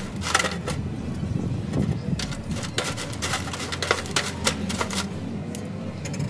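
Wire-mesh grill grate being handled over a sheet-metal charcoal grill, clattering against the frame and the charcoal in a run of irregular clicks and knocks.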